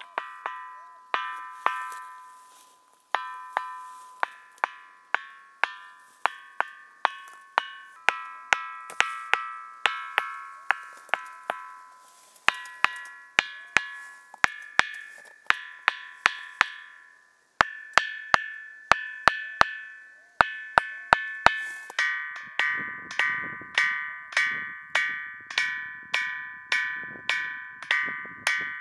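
A large boulder struck over and over with a hand-held stone, each blow ringing with a clear, bell-like tone that dies away. The strikes come unevenly at first and settle into a steady beat of about two a second in the last few seconds, with the ringing note changing several times.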